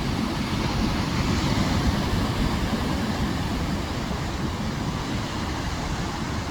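Rough Atlantic surf breaking against sea cliffs, a steady loud roar with a heavy low rumble, mixed with wind buffeting the phone's microphone.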